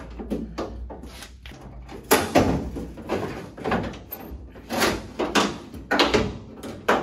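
Truck door window glass being twisted and worked up out of a steel door: a run of clunks, knocks and scrapes of glass, its bracket and its roller against the door shell and track, most of them from about two seconds in.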